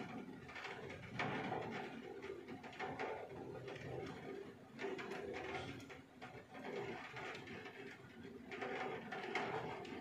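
Rain falling outside a window, with a pigeon cooing in low repeated phrases about a second in, around the middle, and again near the end.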